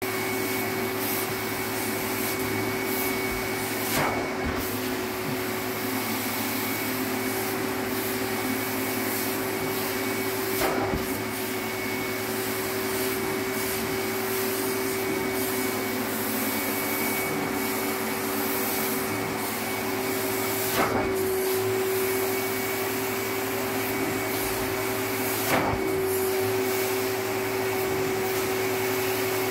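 Carpet extraction machine's vacuum running steadily with a constant whine as the extraction wand is drawn across wet carpet, suction rushing through the wand and hose. Four short knocks are spread through, about 4, 11, 21 and 25 seconds in.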